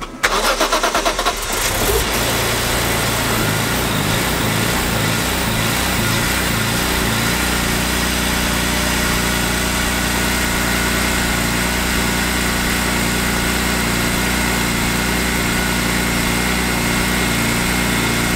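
BMW E46 M3's S54 straight-six engine started: the starter cranks for about a second and a half, the engine catches about two seconds in, and its speed wavers for several seconds before settling into a steady idle.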